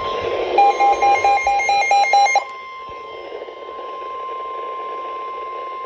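NOAA Weather Radio warning alarm tone, a steady single high tone coming through a radio with static under it, that comes just before a warning is read. For the first two seconds a rapid electronic beeping, about eight beeps at four to five a second, sounds over it.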